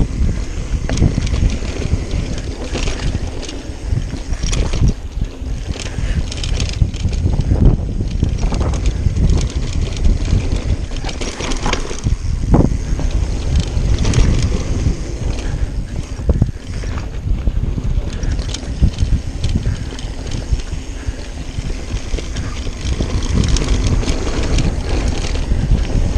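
Wind buffeting the camera microphone on a mountain bike riding fast downhill on a dirt trail, with the bike's rattles and clicks over bumps throughout. A short rising squeal about halfway through.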